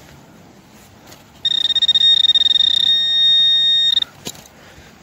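Garrett Pro-Pointer pinpointer giving a steady, slightly pulsing high-pitched tone for about two and a half seconds, starting about a second and a half in: it has found a metal target in the dug hole. A sharp click follows just after the tone stops.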